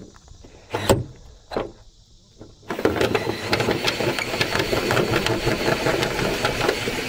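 18V cordless drill with a step cone bit boring through a boat's aluminium hull side. After a couple of sharp clicks, the drill runs steadily from about three seconds in, with rapid ticking as the bit cuts the metal.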